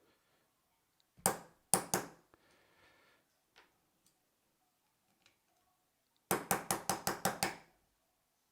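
Plastic shifter body of a SRAM Red shifter banged against a hard metal object to knock out the lever pivot pin. There are three sharp knocks about a second in, then a quick run of about nine knocks near the end.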